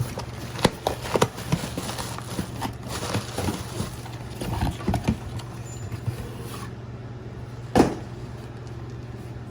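Flashlight packaging box being handled and opened: scattered clicks, taps and rustles of cardboard and plastic, then one sharp knock about 8 seconds in.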